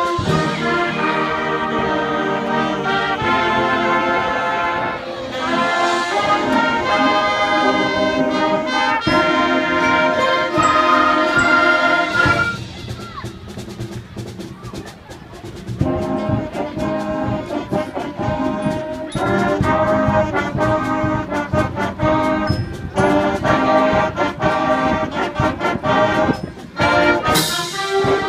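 A middle school concert band of flutes, clarinets, saxophones and brass plays an overture. The full band drops to a quieter passage about halfway, comes back in with percussion, and a bright crash sounds near the end.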